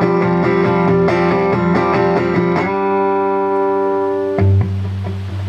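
Guitar playing a quick run of single notes, then letting a chord ring for over a second. Near the end a low note and fresh strums come in.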